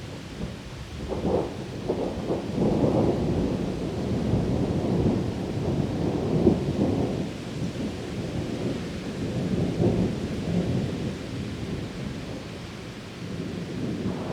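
Thunder rumbling through heavy rain: a long roll that builds about a second in, swells for several seconds and dies down near the end, over the steady hiss of the downpour.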